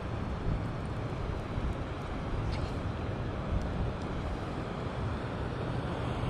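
Steady rumbling wind on the microphone over the rush of flowing spillway water.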